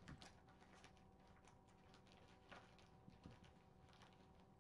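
Near silence: faint room tone with a steady low hum and a few soft, scattered taps.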